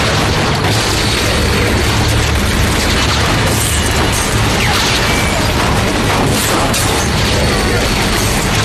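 Dense, continuous rapid gunfire from a car-mounted gun, with bullets striking a van, as a film sound effect.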